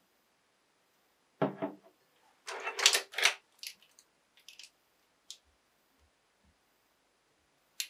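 A ceramic mug set down on a desk with a dull knock, then plastic Sharpie markers clacking together in the hands in a quick cluster of clicks, followed by a few lighter clicks.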